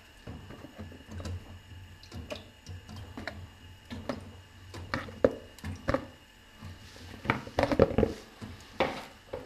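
Whole potatoes dropped one at a time into water in an aluminium pressure cooker: a string of separate splashes and knocks, coming closer together and loudest about seven to nine seconds in.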